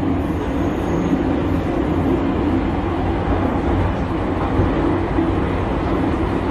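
Metro train running, heard from inside the carriage: a steady, loud rumble with no break.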